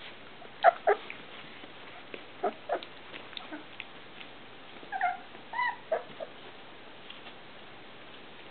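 Three-week-old rough collie puppies whimpering and squeaking in short, high calls: a loud pair about a second in, a few more through the middle.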